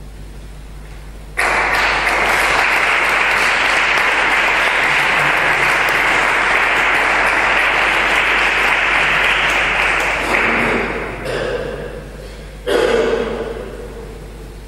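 Audience applauding. The applause starts suddenly about a second and a half in, holds steady and dies away after about nine seconds. Two brief sudden sounds follow near the end.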